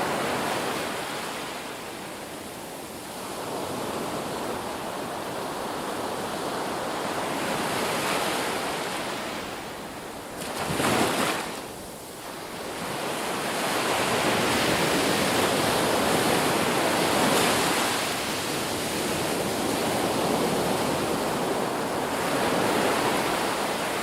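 Ocean surf washing onto a beach, rising and falling in slow swells every few seconds, with one short, louder crash about eleven seconds in.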